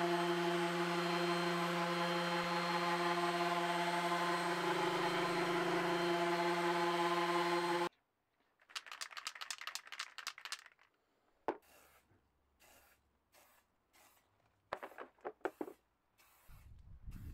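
Electric random orbital sander running steadily against a flat panel, stopping abruptly about eight seconds in. Then an aerosol spray-paint can is shaken, its mixing ball rattling rapidly in two spells, with a sharp click between them.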